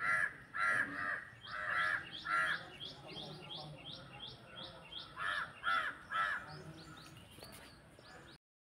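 Birds calling: loud, harsh calls, four in the first two and a half seconds and three more about five seconds in, over a quick run of short rising chirps about three a second. The sound cuts off just before the end.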